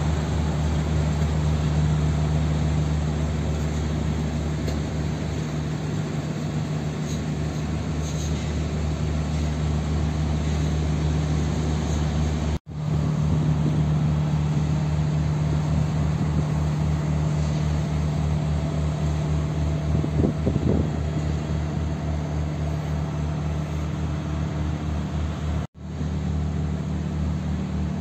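Steady low hum of city street traffic and engines, with no single event standing out.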